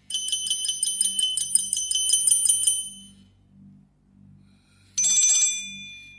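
Nokia Asha 302 ringtone or alert tone playing: a fast, high, bell-like trill for under three seconds, then a single ringing chime about five seconds in that fades out.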